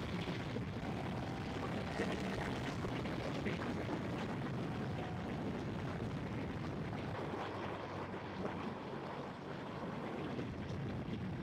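Ducati Streetfighter 848 being ridden at a steady cruise: a continuous rush of wind over the microphone with the L-twin engine running underneath.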